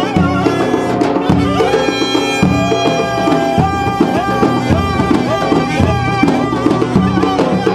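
Turkish folk wedding band: clarinets and a violin playing a melody with held and sliding notes over the steady beat of a davul bass drum.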